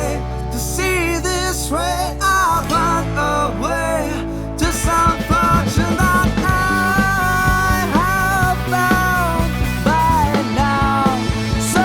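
Rock band playing (guitars, bass, drums, keys), with a bending lead melody line over the band. The arrangement grows fuller and louder about four and a half seconds in.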